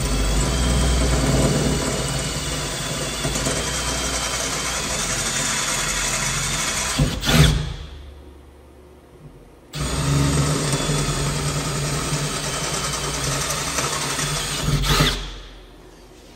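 Cordless drill boring two holes through the sheet-metal side panel of a CNC machine enclosure. It runs steadily for about seven seconds, stops, then runs again for about five seconds; each run gets louder just before it stops.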